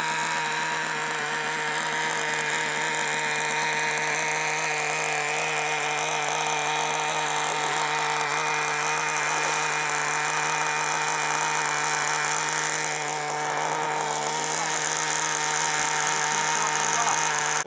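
Small electric motor whining steadily at one unchanging pitch, the drive of a radio-controlled model tugboat; it stops abruptly at the end.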